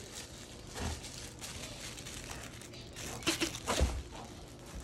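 A Goldendoodle chewing and mouthing a Blockbuster VHS-case chew toy, with scattered crinkly, rustling noises from the toy. A burst of louder chewing noise comes about three seconds in and ends in a dull thump.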